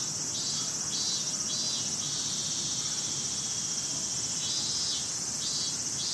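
Cicadas singing outdoors in summer: a steady high-pitched buzz, joined by a lower pulsing call at about two pulses a second near the start and again in the last second and a half.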